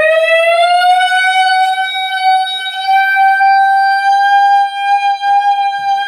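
A person's voice making a loud, long, high-pitched screech as a sound imitation: it slides up in pitch, then is held at one steady note.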